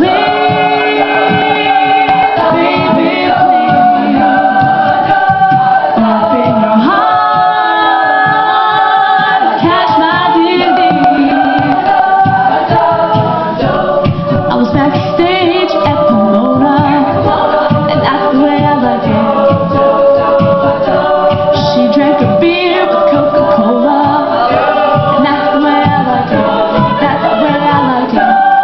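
A vocal group singing a cappella, several voices holding stacked harmonies.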